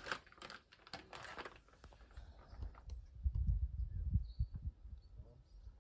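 Light clicks and rustling of handling, then a low wind rumble on the microphone as it moves out through an open window.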